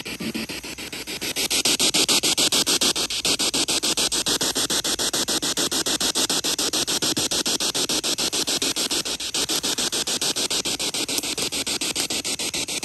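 Spirit box sweeping through radio channels: a steady hiss of static chopped into rapid, even pulses as it jumps from station to station. It gets louder about a second in.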